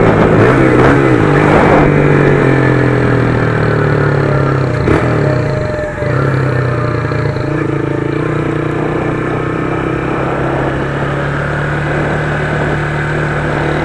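Honda CG 150 Start single-cylinder four-stroke motorcycle with a loud aftermarket exhaust, running while ridden. The engine note shifts in the first couple of seconds, dips briefly about six seconds in, then holds steady.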